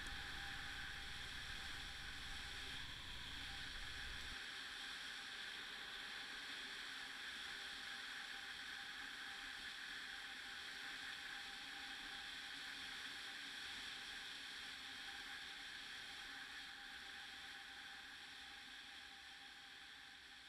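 Steady ride noise of a Honda SH150i scooter on the move: an even hiss with a faint steady hum, a deep rumble that drops away about four seconds in, and the whole fading out near the end.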